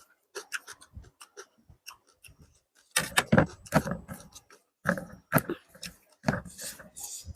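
Close-miked chewing and wet lip-smacking while eating biryani rice and chicken curry: irregular short smacks and clicks, louder in clusters about three seconds in and again from about five seconds.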